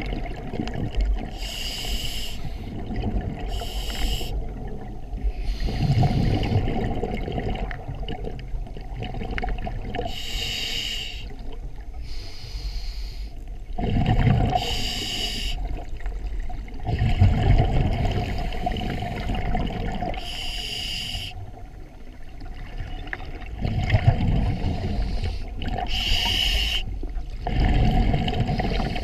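Scuba diver breathing through a regulator underwater: a hissing inhale alternating with a low, rumbling rush of exhaust bubbles, repeating every several seconds.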